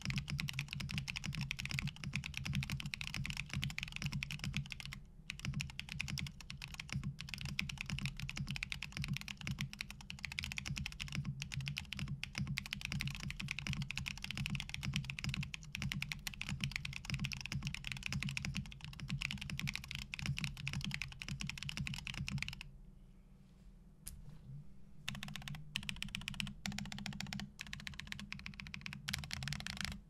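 Fast, continuous typing on a Jalter60 prototype 60% custom mechanical keyboard fitted with stock KNC Keys Green Jacket tactile switches and NicePBT PBT keycaps. The typing stops about three-quarters of the way through, and after a short pause single keys are pressed one at a time, more slowly.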